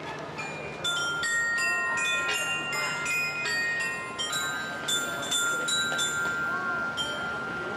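Background music: a light melody of bright bell-like notes, each struck sharply and left ringing, about two a second, over a faint steady background hum.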